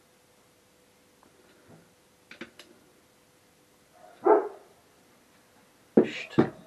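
A dog barks once, briefly, about four seconds in, with a few faint ticks before it. Near the end come two sharp, loud knocks.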